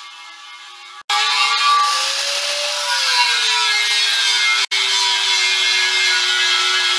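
Handheld angle grinder with its disc grinding the steel top of a 20-gallon compressor tank, a harsh grinding hiss over the motor's whine. Quieter for the first second, then abruptly much louder. The whine rises and falls in pitch about two seconds in, and there is a brief break near the middle.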